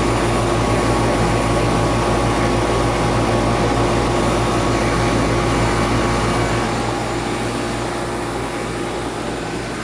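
Heating equipment running with a steady mechanical hum and a low drone, with no bang in it; the level eases down a little about two-thirds of the way through.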